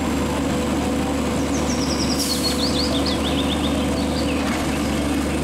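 Front-loading garbage truck's engine running steadily while its hydraulic forks lift a dumpster overhead.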